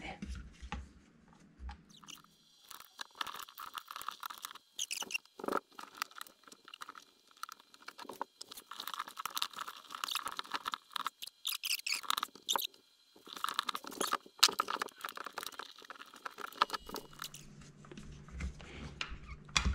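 A KitchenAid dishwasher's plastic pump and filter assembly and its tight rubber gasket being worked into the sump by hand. Plastic and rubber rub and creak in many small clicks and scrapes, in bursts with short gaps.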